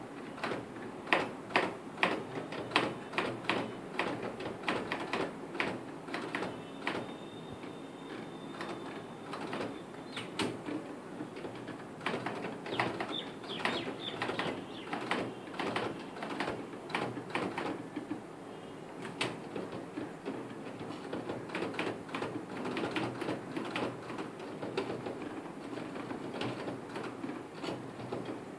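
Manual typewriter keys striking the platen in an irregular series of sharp clicks, several a second, loudest in the first few seconds.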